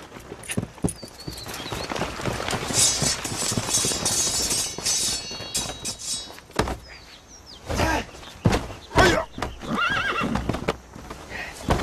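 Horses' hooves clattering at a gallop, with a horse whinnying. The second half has a few loud separate thumps.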